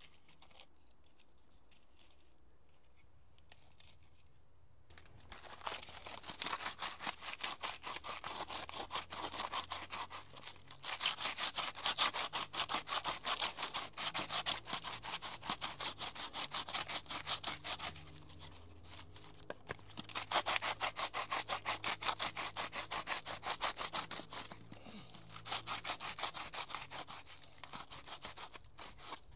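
Wood and bark being handled and laid onto a smouldering fire pit, a dense, rapid crackling and scraping of wood. It starts about five seconds in and comes in stretches of several seconds with short pauses.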